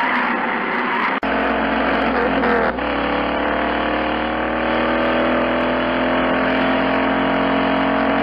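Engine and tyre noise heard inside a Jeep Wrangler on a gravel road. It is rough and uneven at first. From about three seconds in, a smoother engine hum rises slowly in pitch as the vehicle gathers speed.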